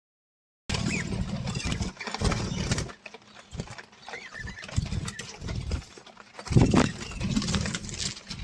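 Repeated low rumbling bumps, with a louder thump about six and a half seconds in, and a few faint bird chirps among them.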